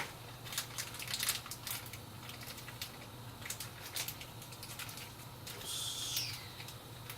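SATA data cables being handled: scattered light clicks and taps, with a short rustle about six seconds in, over a faint steady low hum.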